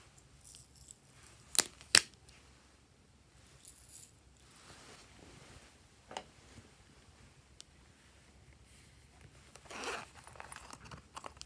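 Sharp clicks of small hard objects being handled, two loud ones close together about a second and a half in and a fainter one midway, then a short rustle and a few light ticks near the end.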